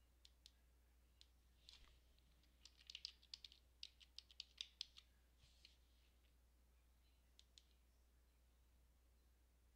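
Faint computer keyboard typing: a few scattered keystrokes, then a quick run of them as a password is typed, followed by two clicks close together near the end.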